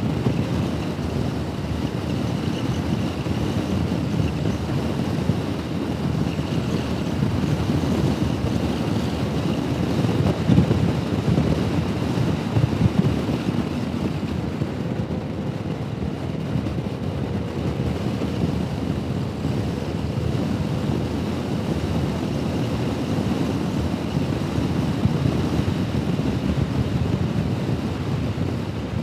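Steady wind rush over a helmet-mounted microphone on a moving Honda Forza 125 scooter, with the low drone of its single-cylinder engine and tyre noise underneath.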